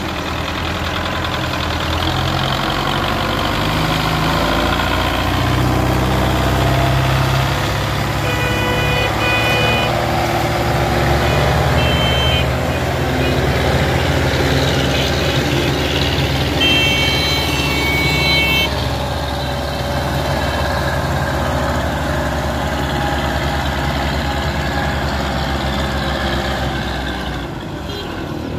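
Belarus 510 tractor's diesel engine running steadily under heavy load as it pulls a fully laden sugarcane trolley. A horn sounds in a few short blasts about a third of the way in, and once for about two seconds past the middle.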